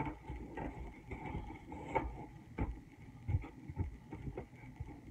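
Foam insert being pushed and pressed down into a hard plastic carrying case: irregular light knocks and rubbing against the plastic.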